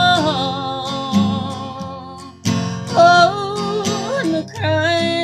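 Acoustic guitar strummed under a woman singing a slow country ballad. She holds a long note at the start and sings another phrase in the second half.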